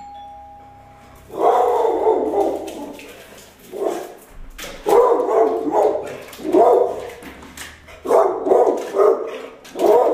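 A two-note doorbell chime, then an American Bulldog barking loudly in repeated volleys, about six bursts, as his alarm reaction to the doorbell.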